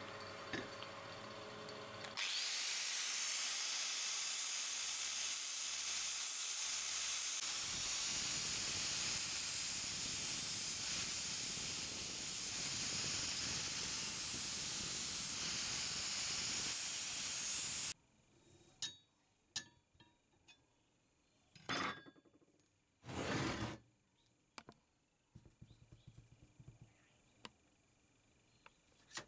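Makita 9556NB angle grinder with a sanding disc grinding the rust off a steel sickle blade: it spins briefly free, then bites into the metal about two seconds in and grinds steadily and loudly until it cuts off suddenly about 18 seconds in. After that, a few faint clicks and knocks of tools being handled.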